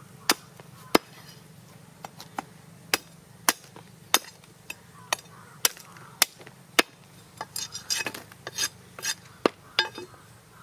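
Large knife chopping goat head bone and meat on a wooden log chopping block: sharp chops about every half second, turning into a quicker run of lighter chops near the end.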